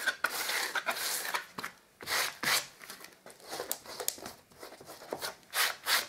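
Filling blade scraping and slicing through cured expanding foam in the gap along the top of a skirting board, in a run of short, irregular strokes.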